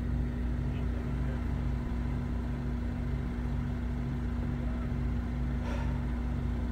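Car engine idling, a steady low hum heard from inside the stopped car's cabin, with a brief click about five and a half seconds in.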